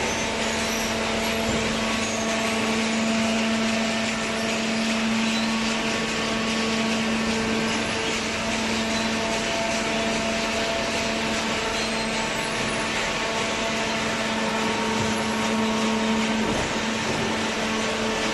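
Vertical hydraulic baler's motor-driven hydraulic pump running with a steady hum.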